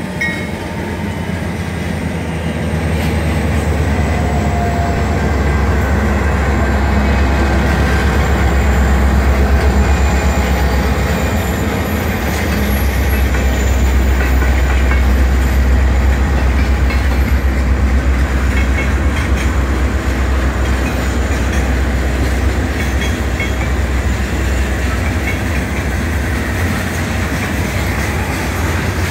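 Diesel-hauled freight train passing close by: a deep, steady locomotive engine rumble and the rolling of freight cars over the rails, growing louder over the first few seconds as the locomotives come by.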